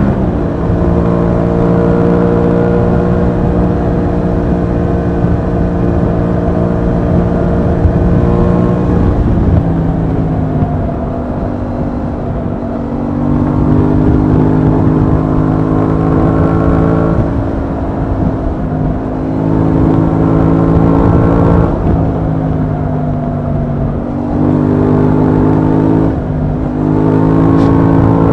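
Aprilia Tuono 660's parallel-twin engine running under way. It holds a steady pitch at first, then climbs in revs and drops back several times as the bike accelerates, shifts and eases off.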